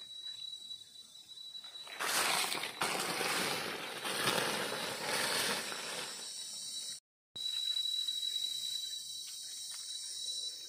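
Dry leaf litter rustling and crackling as hands dig a wild mushroom out of the forest floor, loudest from about two seconds in, with a brief dropout to silence about seven seconds in. A steady high-pitched insect drone sounds underneath.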